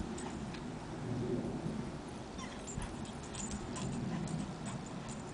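A dog whimpering, with small scattered clicks and a steady low rumble of noise underneath.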